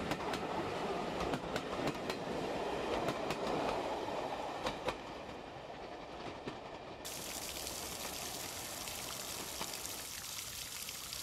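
Coaches of a steam train rolling past, the wheels clicking over the rail joints. About seven seconds in this gives way to the steady splashing of an ornamental fountain.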